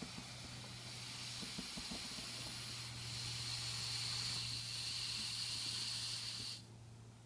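Air hissing out of a breath-filled balloon through its neck into the sensor's light path, growing louder about three seconds in and cutting off sharply near the end.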